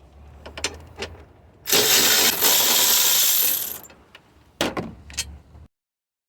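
A cordless power tool runs for about two seconds, undoing a 13 mm bolt, with a few sharp metal clicks of the socket and tool before and after. The sound stops abruptly near the end.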